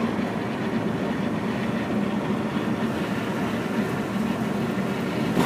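A 1968 GMC 4903 highway coach running at road speed, heard from the driver's area: a steady, low engine drone mixed with road and tyre noise.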